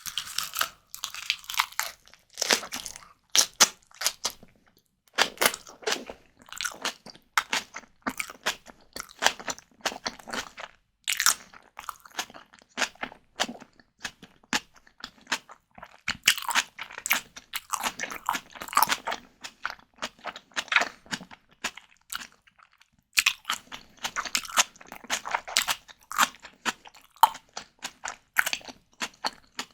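Close-miked chewing and biting of prawns: dense, sharp crunchy and wet mouth clicks in bursts, with short pauses between mouthfuls.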